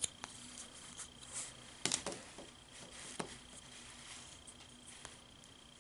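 Faint handling of a plastic Play-Doh popsicle mold and dough: scattered soft clicks and taps, the sharpest about two seconds in.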